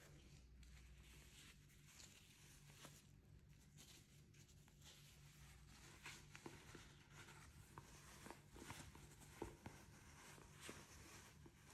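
Faint rustling and crinkling of a thin fabric pouch being lifted out and unfolded by gloved hands, with scattered soft ticks and taps that grow busier in the second half.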